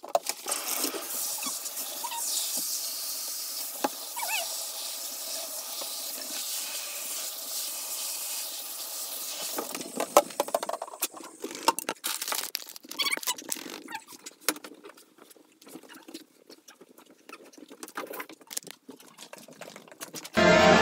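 Water running from a bathtub tap in a steady hiss while a dog's paws are washed; about ten seconds in it stops, leaving scattered light taps and patters.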